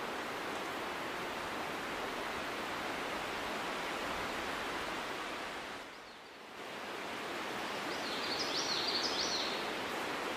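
Steady outdoor background hiss that dips briefly just past halfway, with a few quick high chirps near the end.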